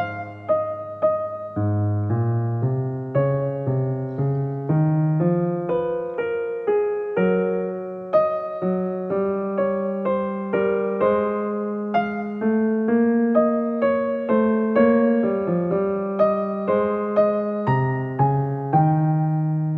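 Soft background music on electric piano: a gentle, steady melody of single struck notes, about two a second.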